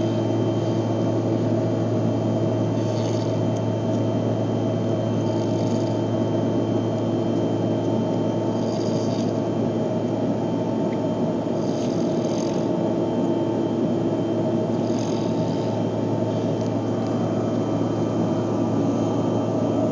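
A person snoring on an airliner, a breath about every three seconds, over the steady drone of the aircraft cabin.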